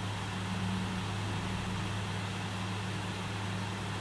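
A steady low hum with a constant hiss behind it, unchanging throughout; no distinct handling sounds stand out.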